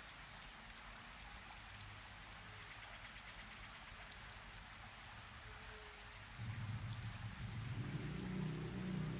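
A faint, steady hiss like rain falling, with a low steady hum coming in about six seconds in.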